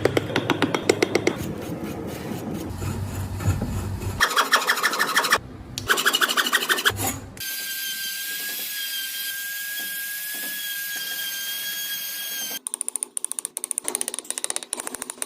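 Hand tools working wood: quick, repeated rasping strokes in several short bursts. About halfway through they give way to a power tool running with a steady high whine, and near the end come fast, repeated strokes.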